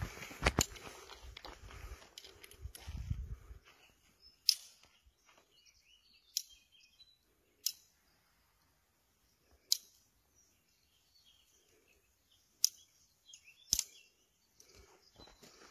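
A Colt Single Action Army revolver being handled: about seven sharp metallic clicks, spaced one to three seconds apart. Some handling rumble comes in the first few seconds.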